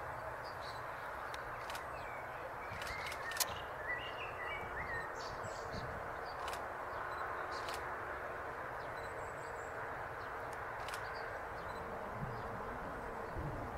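Outdoor ambience: a steady background hiss, with a few short bird chirps about three to five seconds in. A few sharp clicks come through, the loudest about three and a half seconds in.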